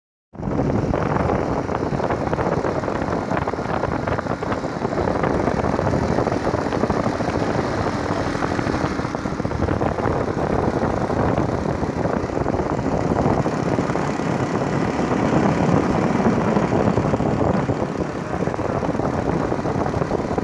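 A road vehicle driving along, heard from on board: a steady engine rumble mixed with road and wind noise, with no clear changes.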